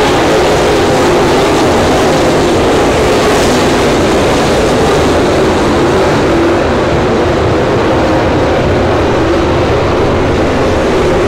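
A field of dirt late model race cars running their V8 engines hard around a dirt oval. Several engines overlap in a loud, steady drone whose pitch wavers as the cars pass.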